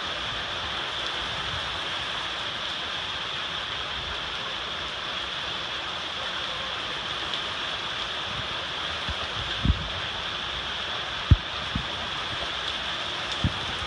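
Rain falling in a steady hiss, with a few short low thumps in the second half.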